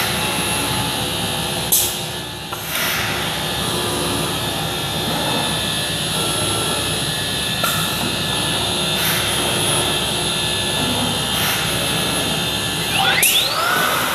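CNC woodworking machine milling and drilling wood: a steady spindle whine over dust-extraction noise, with a few short knocks and a whine that sweeps in pitch near the end.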